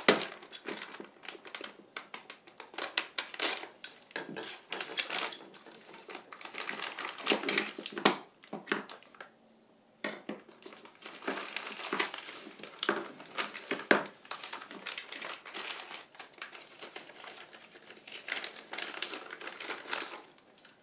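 Irregular handling noises: rustling and small clicks and clinks, like parts and packaging being handled on a bench, with a short pause about nine seconds in.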